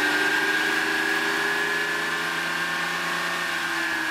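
A car's engine and twin-pipe exhaust running steadily for a roadside noise-level measurement, comes in suddenly and eases slightly lower in pitch near the end. The exhaust was suspected of being too loud but measured within the legal limits.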